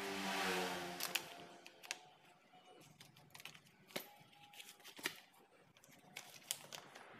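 Scattered light clicks and knocks of plastic and metal parts being handled as the rear motor cover of a JLD JX35 demolition hammer is worked loose and lifted off. The sharpest click comes about a second in, with more taps near the fourth and fifth seconds.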